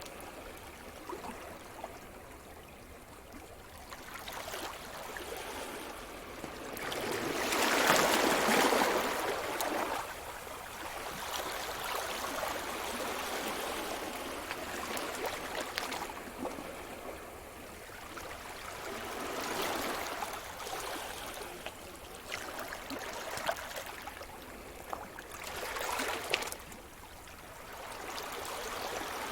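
Sea surf: waves breaking on the shore and washing back in slow swells, the biggest about eight seconds in and smaller ones around twenty and twenty-six seconds.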